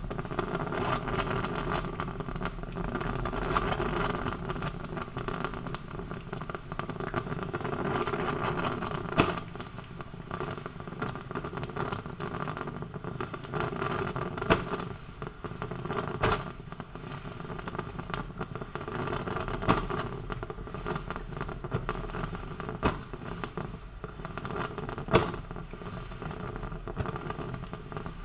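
Coffee maker brewing: a steady hiss broken by occasional sharp pops or clicks every few seconds.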